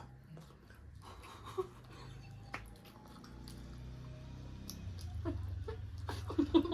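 People eating by hand: faint chewing and soft clicks of food and dishes. A low hum grows louder in the second half.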